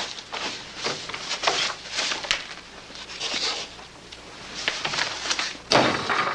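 Scattered footsteps and shuffling knocks of people moving in a small room, then a door shutting hard near the end.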